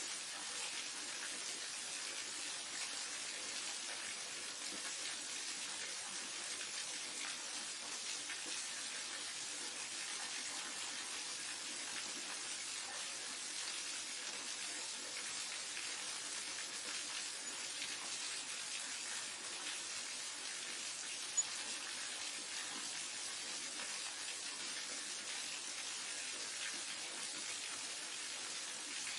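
Waterfall: a steady, unbroken rush of falling water, with a single short click about two-thirds of the way through.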